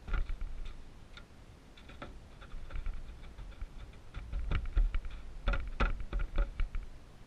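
Hands spreading and patting loose wood-shaving bedding in a plastic tub: crisp crackling and ticking of the shavings, with dull knocks against the plastic. It comes in clusters, one right at the start and the busiest between about four and a half and six and a half seconds in.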